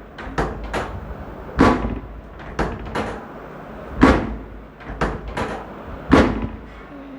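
A series of sharp knocks: three heavy ones about two seconds apart, with two or three lighter knocks between each.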